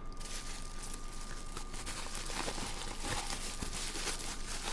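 Packing material rustling and crinkling in continuous small irregular crackles as a wrapped glass is unwrapped by hand.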